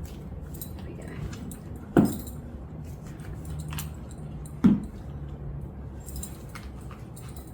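Small metal shoe buckles clinking and jingling with light clicks as a strappy platform high heel is handled and put on, with two dull thumps, about two and about four and a half seconds in.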